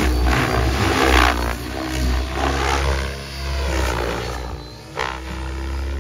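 Large electric RC helicopter flying aerobatics, its rotor blades whooshing in loud surges during the first second and a half and again about five seconds in. Music plays in the background.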